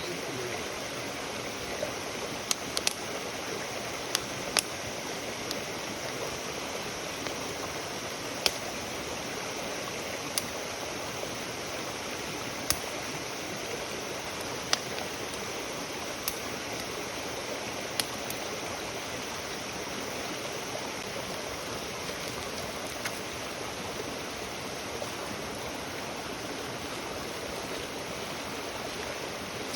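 Wood fire crackling: sharp pops every second or two over a steady hiss, with the pops thinning out in the last third.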